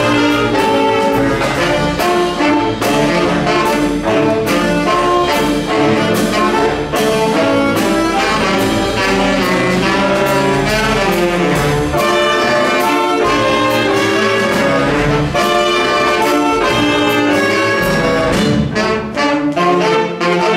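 Saxophone ensemble playing a jazz number, backed by double bass and drum kit with steady cymbal and drum strikes. Near the end the horns play short, punched chords.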